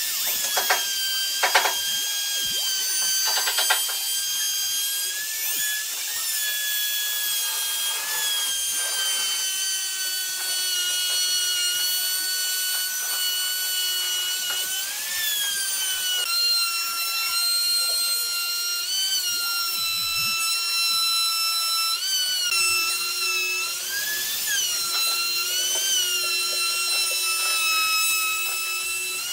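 Maktec compact trim router running with a steady high-pitched whine while its bit cuts a circular groove through wood on a pivot jig; the pitch sags briefly now and then as the bit takes load. A few sharp clicks in the first two seconds.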